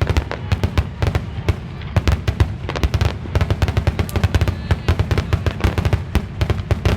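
A rapid barrage of fireworks going off, several sharp bangs a second with deep booms underneath, heavy enough to make the ground shake.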